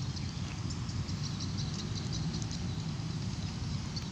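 Insects chirping in quick, repeated high-pitched pulses over a steady low rumble.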